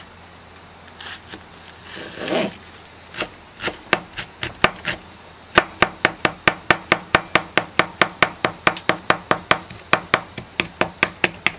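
Kitchen knife chopping a Japanese long green onion (negi) on a plastic cutting board: a few scattered cuts at first, then a quick, even run of knocks at about four a second from about halfway through.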